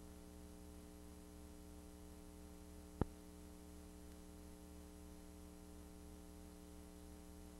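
Faint steady electrical hum with a single sharp click about three seconds in.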